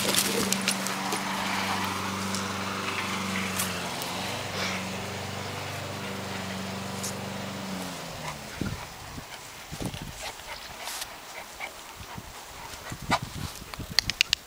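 A motor's steady low hum that cuts out about eight seconds in, followed by scattered light knocks and clicks.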